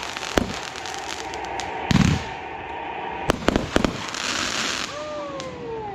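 Backyard consumer fireworks going off: several sharp bangs, one deeper boom, and a quick run of cracks, followed by about a second of crackling hiss. A falling tone follows near the end.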